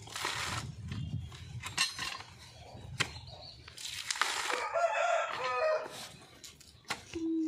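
A rooster crows once, a call of about a second and a half starting about four seconds in. Around it come short ripping and cracking sounds of a coconut husk being pried apart on a metal husking spike.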